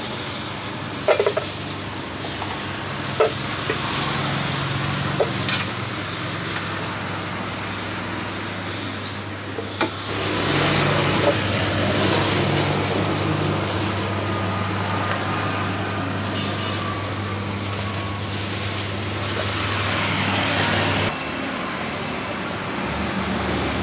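Street traffic with a nearby engine running as a steady low hum that cuts off suddenly about 21 seconds in, and a few sharp clinks of a metal spoon against a steel bowl.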